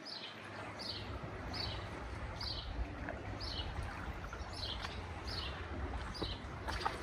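A small bird repeating a short, high, falling call about once a second, with a steady low rumble coming in underneath about half a second in.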